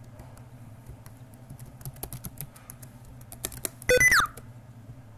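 Computer keyboard typing, quick irregular key clicks as a password is entered. About four seconds in, a brief, loud tone falling in pitch cuts in, the loudest sound, over a steady low hum.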